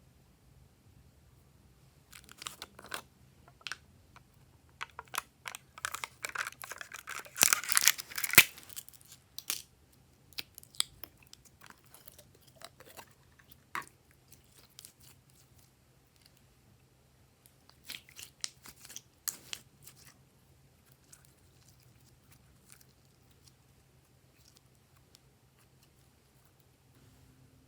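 Glossy slime being worked by hand, giving off bursts of crackling clicks and pops. The busiest and loudest stretch runs from about two seconds in to about ten, with a shorter burst later on.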